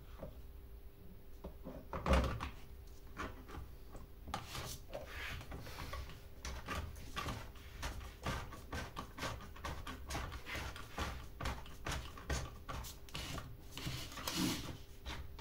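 Irregular clicks, knocks and rattles of chainsaw parts being handled and fitted together by hand, with one heavier thump about two seconds in.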